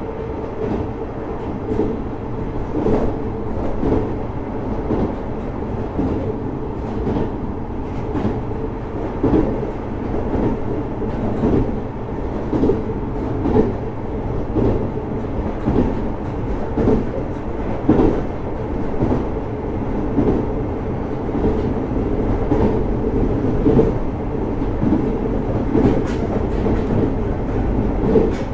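JR Hokkaido 733 series electric train running steadily, heard from inside the car: constant rolling rumble with the wheels knocking over rail joints about once or twice a second.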